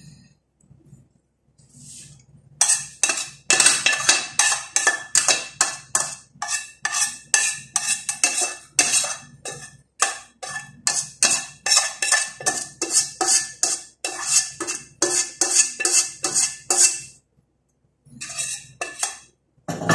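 Metal spoon scraping and knocking inside a stainless steel frying pan, emptying mashed fava beans onto a plate: a run of quick strokes, about three a second, with the pan ringing. The strokes stop a few seconds before the end, and a few more follow.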